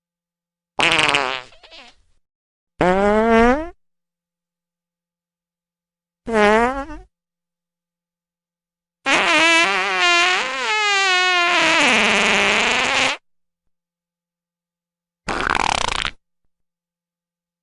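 A series of five fart sound effects, each cut off into dead silence. The pitch slides up and down and wavers, and the fourth one is the longest, about four seconds.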